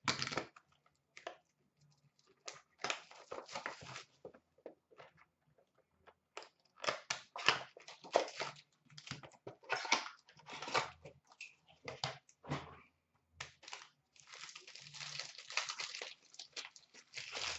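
Trading card boxes and foil packs being torn open by hand: irregular bursts of tearing, crinkling and rustling of wrapper and thin cardboard, with short pauses between.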